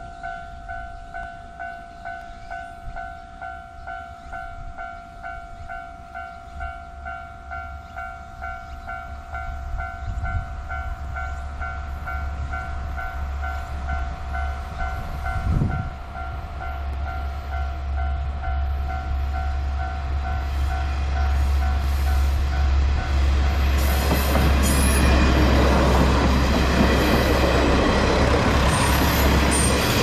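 Japanese level-crossing warning bell ringing in a steady pulsing pattern as a five-car KiHa 40/47 series diesel railcar train approaches. From about two-thirds of the way in, the train's diesel engines and wheels on the rails grow loud as it runs across the crossing, drowning out the bell.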